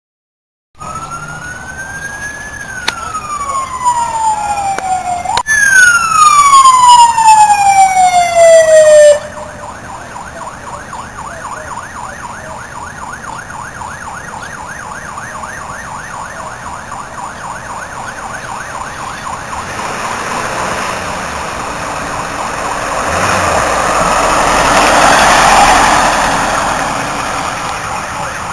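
Emergency vehicle sirens. First a loud siren sweeping down in pitch, twice. Then, after an abrupt change, a fast yelp siren on a fire-rescue ambulance grows louder, peaks about 25 seconds in as the ambulance passes, and eases off.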